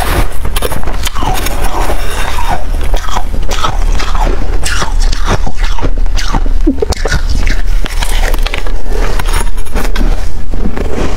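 Freezer frost crunching loudly as it is bitten and chewed right at a lapel microphone, in a dense run of short crackles, with a metal spoon scooping through the frost block.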